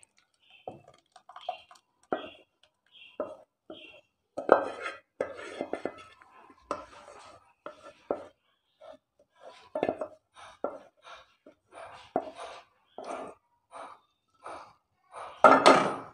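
A spatula scraping and stirring thickened milk in a glass bowl, with short irregular knocks and scrapes against the bowl, the loudest near the end.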